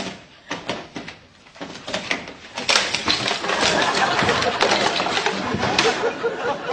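Scattered bumps and knocks as a man crashes into a wall and falls over a chair. From about three seconds in, a studio audience breaks into loud, sustained laughter.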